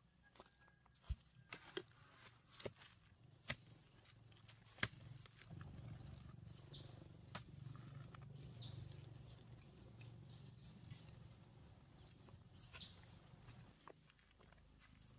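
A few sharp knocks of the digging tool in the first five seconds, then a faint low scraping noise as a digging tool works leaf-littered soil. A small bird gives short falling chirps several times.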